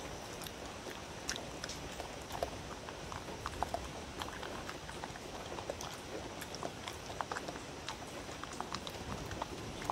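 A dog eating from a wooden bowl: irregular small clicks and smacks of chewing.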